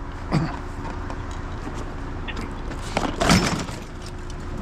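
A heavy chair being hoisted onto a loaded scrap trailer: a knock early, scuffing, then a louder clunk about three seconds in as it lands, over a steady low hum.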